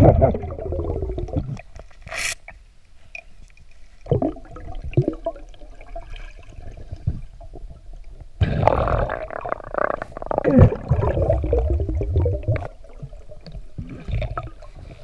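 Muffled underwater sound from a swimming diver: bubbling and water moving around the camera, louder in stretches about four seconds in and from about eight to twelve seconds.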